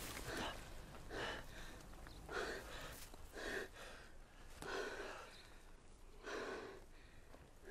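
Heavy, gasping breaths, about one a second, from a man and a woman out of breath after the strain of a rescue pull up a cliff.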